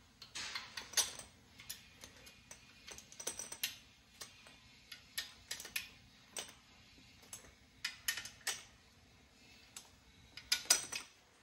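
Hand socket wrench on a long extension clicking and ticking as intake manifold bolts on an LSX engine are run down by hand: short, irregular metallic clicks, some in quick bunches.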